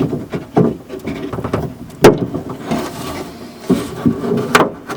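Hands working inside a car door shell, freeing the handle's latch rod and its plastic clip: scattered knocks and rubbing, with a sharp click about two seconds in.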